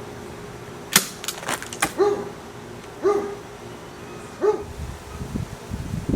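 A dog barking, single short barks roughly once a second, with a few sharp clicks between the first barks and low rustling near the end.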